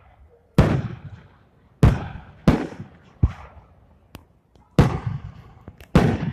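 Aerial firework shells bursting in quick succession: about six loud, sharp bangs, each trailing off in an echoing rumble, with a couple of smaller cracks between them.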